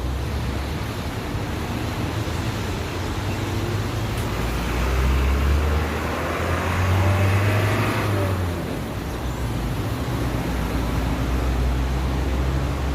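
Road traffic running steadily, with one vehicle passing louder from about four to eight seconds in.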